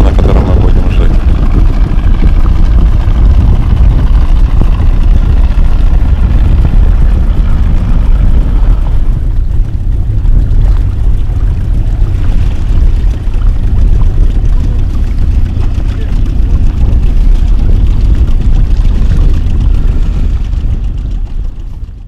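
A small outboard motorboat under way on open sea: steady engine and water noise with heavy wind rumble on the microphone, fading out near the end.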